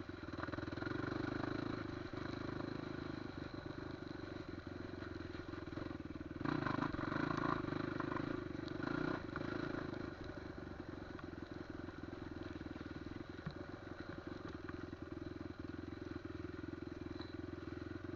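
Off-road trail motorcycle engine running while riding, rising in revs and loudness about six seconds in and easing back about four seconds later.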